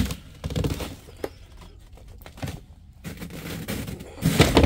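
Footsteps in a narrow passage: a few uneven knocks and scuffs about once a second, with a louder cluster of knocks near the end.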